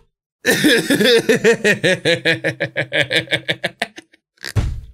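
A man laughing hard: a long run of quick, rhythmic laughs that tails off, followed by a short low thump near the end.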